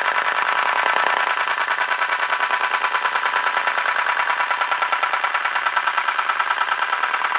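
A rotation sound effect: a steady, fast-pulsing mechanical whir of something spinning, about ten even pulses a second.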